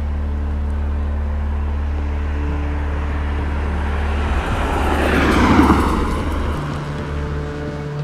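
A car passing by, its road noise swelling to a peak about five and a half seconds in and then fading, over a steady low hum.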